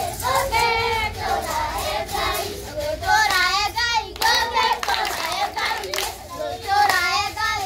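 A group of children singing a Kikuyu folk song with hand clapping, with a high wavering, trilling voice about three seconds in.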